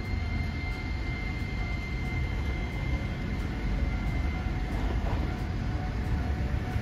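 Hiroden 5100-series Green Mover Max low-floor tram pulling away, a low rumble with a steady high whine that fades out about four seconds in as it draws off.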